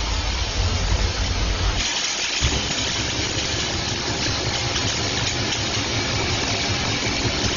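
Coin-mint production machinery running steadily: a constant mechanical hum and hiss. About two seconds in the deep hum drops away and a brighter hiss takes over.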